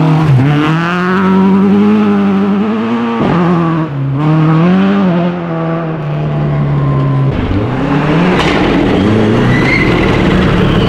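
A Toyota Corolla rally car's engine revving hard through a chicane and pulling away, the revs rising and falling with two quick gear changes about three to four seconds in. About seven seconds in the sound changes abruptly to a Subaru Impreza rally car's flat-four engine approaching, its revs climbing.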